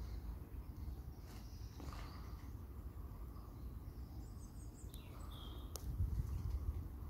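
Low, steady rumble of wind on the microphone, with a few short, faint bird chirps about four to five seconds in.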